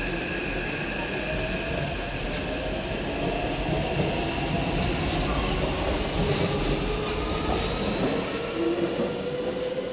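Taipei Metro C381 train with software-modified propulsion accelerating away from the station, its traction motors whining in tones that climb in pitch over a steady rolling rumble.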